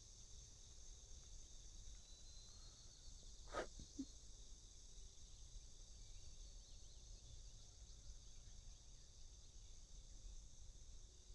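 Faint, steady high-pitched chorus of crickets or other insects, with one short tap about three and a half seconds in.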